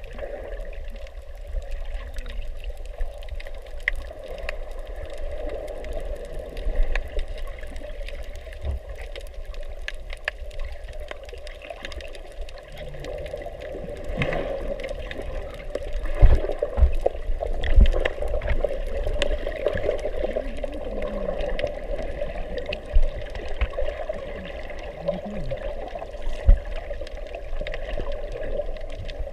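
Underwater sound through a GoPro's waterproof housing: a steady, muffled rush of water around the camera, with scattered faint clicks and several low thumps, most of them about halfway through.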